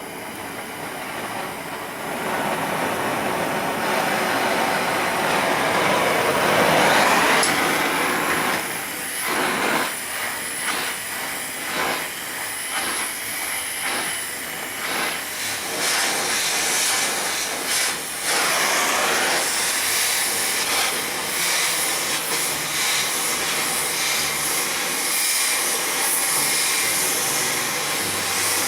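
Oxy-fuel cutting torch flame hissing steadily as it heats the twisted steel leg of a blacksmith's leg vise. The hiss swells up over the first couple of seconds, then holds, wavering a little.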